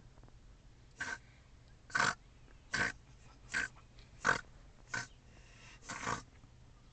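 A child snoring loudly, like an old man: seven short, rough snores in a row, a little under a second apart.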